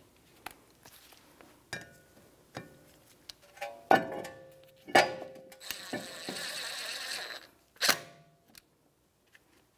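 Ratchet with a T40 Torx bit tightening the screw that holds a brake rotor to the hub: several sharp clicks and knocks, then a rapid ratcheting run of about a second and a half, then a final knock.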